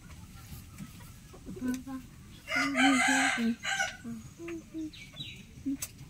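A rooster crowing once, a loud call about a second and a half long starting about two and a half seconds in. Short low clucks from chickens come before and after it.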